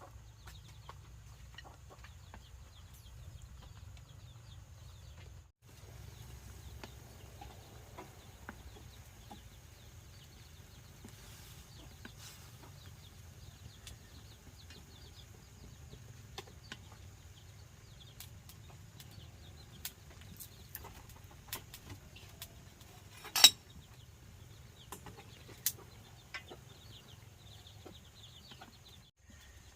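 Chickens clucking softly over a low steady hum, with a few sharp clinks or knocks scattered through; the loudest clink comes about three-quarters of the way in.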